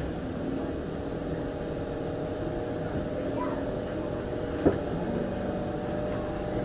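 Singapore MRT train heard from inside the car: a steady running rumble with a constant motor hum as it slows to stop at a station, and one sharp click about four and a half seconds in.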